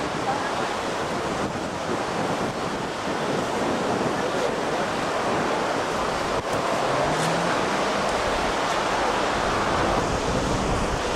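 Flooded Brisbane River running fast over the footpath and through the ferry terminal, a steady rushing noise, with wind buffeting the microphone.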